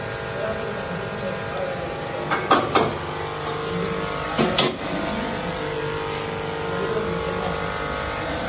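Metal clanks against a steel karahi on the stove: three in quick succession about two and a half seconds in, and two more a couple of seconds later, over a steady mechanical hum.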